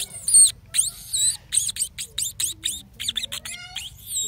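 A run of rapid, high-pitched peeping chirps from small birds, about four or five a second.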